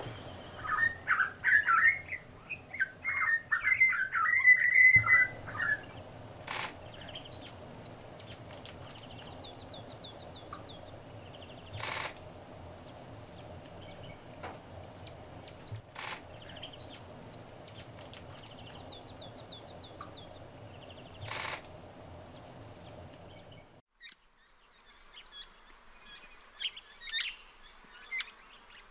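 Small birds singing and calling. A burst of lower chirping calls comes in the first few seconds, then phrases of rapid, high-pitched sweeping notes repeat over and over, with a few sharp clicks among them. After a cut near the end, fainter high calls follow.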